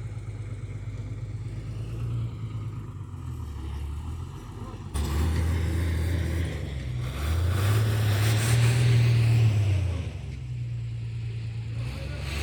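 Motor vehicle engine running, with a steady low rumble that gets suddenly louder about five seconds in and is loudest between about seven and ten seconds.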